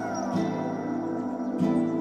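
Ambient background music: sustained chords that change about every second and a quarter, with a short gliding tone near the start.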